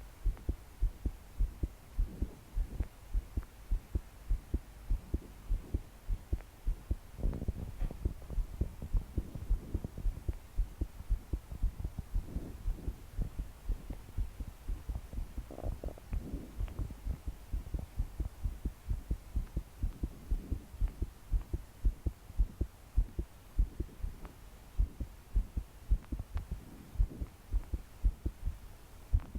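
A person's heart pounding fast and hard in a quick, steady run of low thumps, the racing, forceful heartbeat of palpitations. Slow breaths swell in and out every few seconds.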